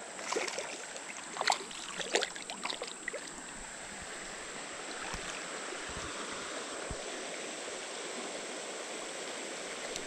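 Flowing creek water running steadily, with a few brief splashes and knocks during the first three seconds.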